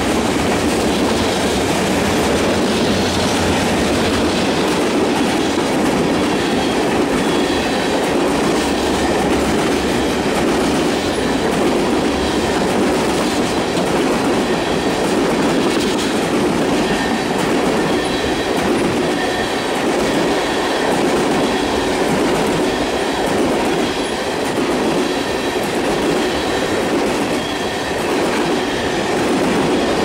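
Freight train cars (boxcars, then a string of tank cars) rolling steadily past close by: continuous wheel rumble and clatter over the rails, with a faint high wheel squeal now and then.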